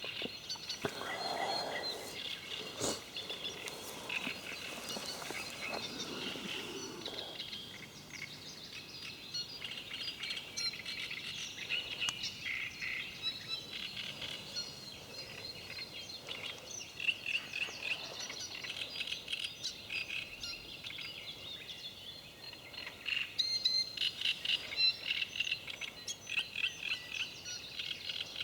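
Several songbirds singing at once, a continuous stream of short chirps and rapid trills.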